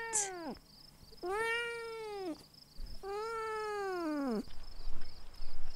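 Cat meowing: the tail of one meow, then two drawn-out meows, each rising and then falling in pitch. A few low bumps follow near the end.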